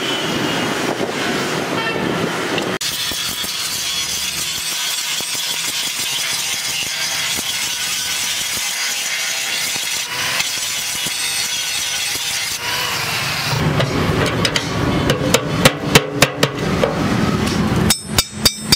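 Electric angle grinder grinding a flat steel strip, a steady hiss with a faint whine. Toward the end comes a quick run of hammer blows on metal, about three a second.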